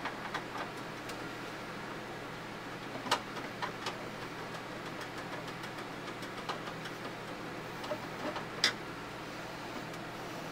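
Scattered sharp clicks and taps of hands handling the plastic case and small parts of an IBM PS/2 Model 25 desktop computer, over a steady low hum. The clearest click comes about three seconds in and another near the end.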